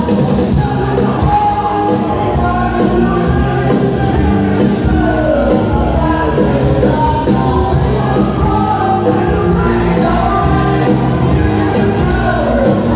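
Live band playing loud amplified music through a PA, with a singer's voice over the band.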